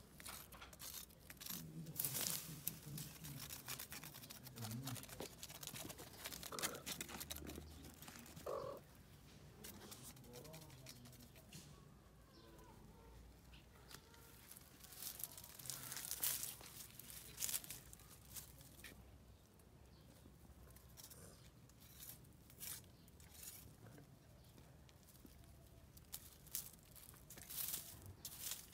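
Dry fallen leaves and plants rustling and crackling in irregular bursts.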